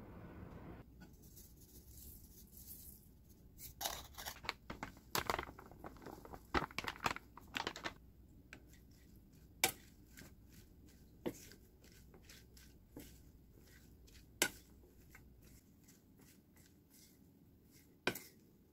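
Cut garlic chives being tossed with flour in a stainless steel mixing bowl with a wooden spatula. A dense patch of crinkling and rustling comes about four to eight seconds in, followed by single sharp knocks of the spatula against the bowl every second or two.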